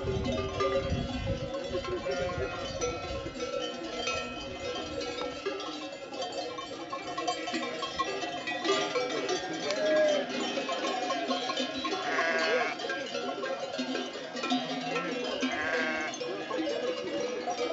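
Many bells on a grazing sheep flock ringing and clanking continuously in an overlapping jangle, with two short sheep bleats in the second half.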